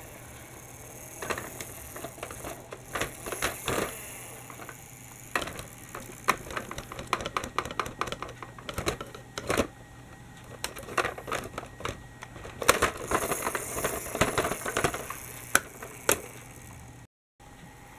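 Irregular plastic clicking and clattering as a toy articulated bus is handled and moved over plastic Lego train track, in quick flurries with pauses between.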